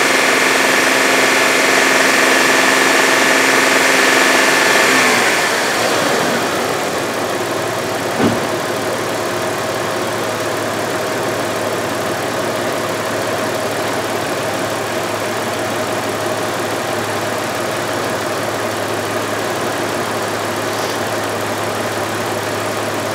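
2000 Audi A6's 2.8-litre V6 running at raised RPM, held up to bring the oxygen sensors up to temperature, then falling back to a steady idle about five seconds in. A single short knock about eight seconds in.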